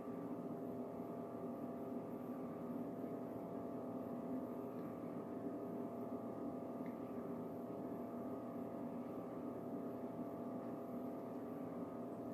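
A steady hum made of several fixed low tones, unchanging throughout, with no other sound over it: room tone.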